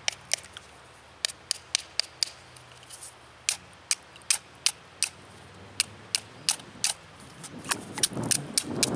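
Knife blade working a piece of shale, splitting off a thin layer: a run of sharp, irregular clicks, several a second at times and sparser in the middle, with a low rustle near the end.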